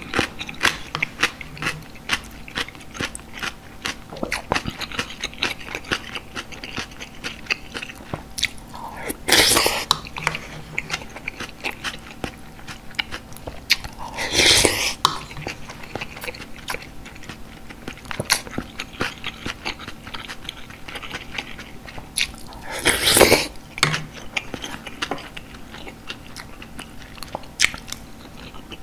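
Close-miked eating of galbitang with a wooden spoon: a steady run of small wet chewing and lip-smacking clicks, broken three times by a louder slurp from the spoon.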